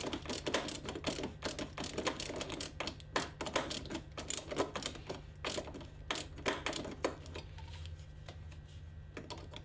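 Phillips screwdriver tightening a screw into a scooter's plastic turn-signal lens cover: rapid, irregular clicking, several clicks a second, thinning out in the second half, over a low steady hum.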